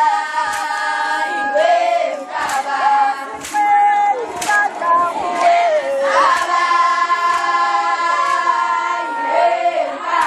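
A large group of young women singing a traditional Zulu song together in unison, holding long notes with slides between them. Sharp beats about once a second keep time under the singing.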